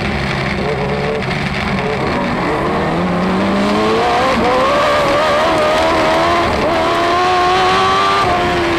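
Dwarf race car engine heard from inside the cockpit at racing speed, its revs climbing from about two and a half seconds in, held high, then easing off just before the end.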